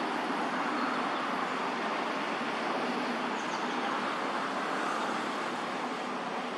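Steady rushing outdoor background noise at an even level, with no distinct calls or knocks standing out.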